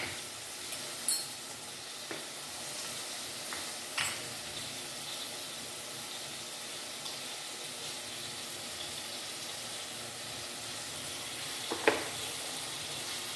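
Minced meat and onion sizzling steadily in oil in a pot, with a few light clicks and knocks of a bamboo-lidded spice jar being handled, the sharpest near the end.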